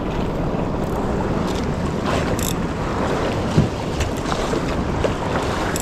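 Wind blowing over the microphone and choppy sea water washing around a small outrigger fishing boat, with a low hum underneath. A short knock comes about three and a half seconds in.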